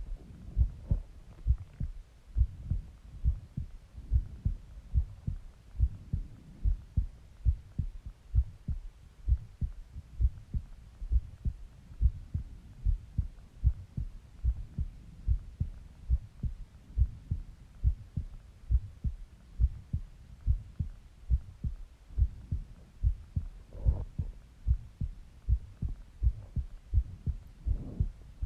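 Human heartbeat heard close against the body: a steady, even rhythm of low thumps, roughly two a second, with a couple of brief fainter sounds near the end.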